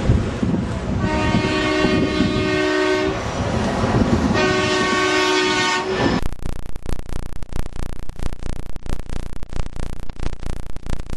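Two long horn blasts, each a chord of several steady tones: the first lasts about two seconds, the second about a second and a half, over wind noise. About six seconds in, the sound switches abruptly to dense, continuous crackling and rattling.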